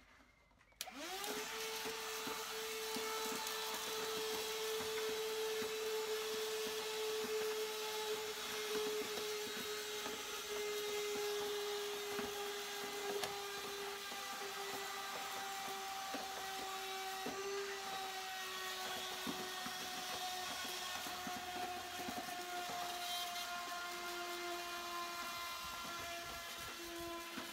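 A 14.4-volt cordless handheld vacuum cleaner switching on about a second in with a quick rising whine, then running steadily while sucking dirt and debris out of the bottom of a car's air filter box. Its whine slowly drifts lower as it runs.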